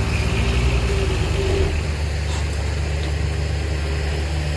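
Heavy diesel engine of earth-moving machinery running steadily, with a faint higher whine over it for the first second and a half.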